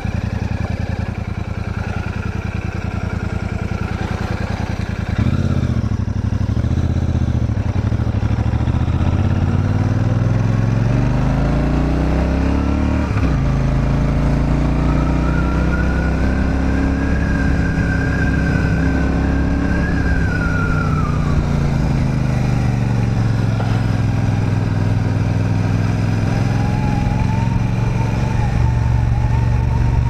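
Royal Enfield Super Meteor 650's 648 cc parallel-twin engine and exhaust under way. It runs at low, steady revs, then about five seconds in it pulls away with revs climbing. The revs ease off in the second half and climb again near the end.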